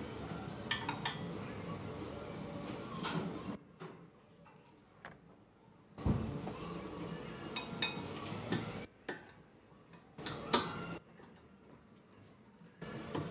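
Metal clinking and clicking of brake parts and hand tools as rear brake pads and the caliper are fitted, over two stretches of steady background noise that cut in and out abruptly.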